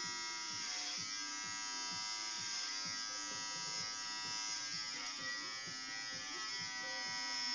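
Electric hair clippers buzzing steadily as they shave a man's head down close to the scalp.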